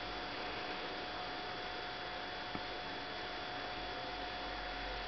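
Steady electrical hum and hiss with a thin constant whine, with one faint tick about two and a half seconds in.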